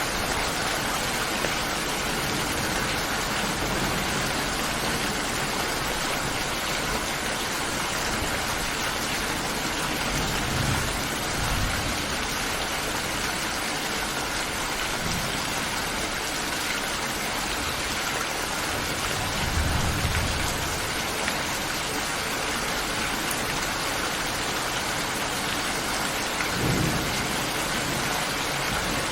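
Steady heavy rain hissing, with three short low rumbles of thunder: one about a third of the way in, one about two-thirds in and one near the end.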